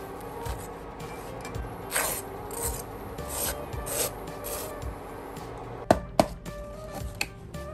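Metal tongs scraping and pressing slices of toast against a nonstick frying pan, in about five rasping strokes. About six seconds in come two sharp knocks, the loudest sounds.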